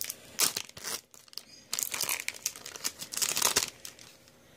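Foil Pokémon booster-pack wrapper crinkling in clusters of crackles as it is handled and torn open.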